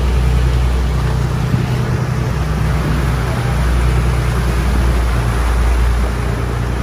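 Fishing boat's engine droning steadily under way, with wind and rushing wake water over it.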